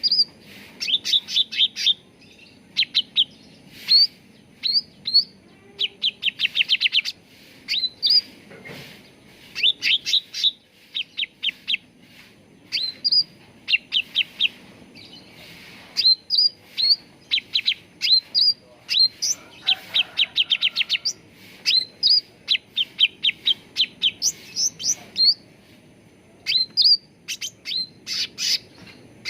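Cucak ranting birdsong: repeated fast runs of short, clipped chirps broken up by single sharp up-slurred whistles, in phrases with short pauses between them.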